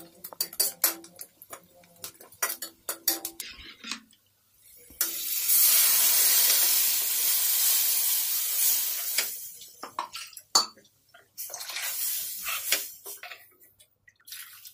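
Metal ladle clinking and scraping against a steel kadai, then a steady rush of the liquid kadhi batter being poured into the pan for about four seconds, followed by more scattered clinks.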